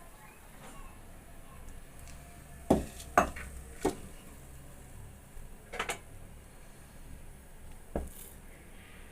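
Kitchenware clinking and knocking while tea is being prepared: three sharp clinks close together about three seconds in, a pair near six seconds, and one more near the end.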